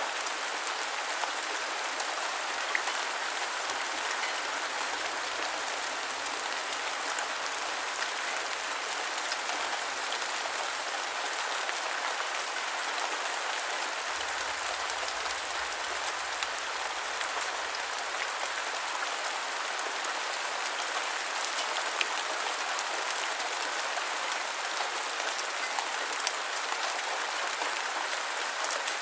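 Rain falling steadily: a dense, even patter of drops, with a few louder single drop ticks standing out.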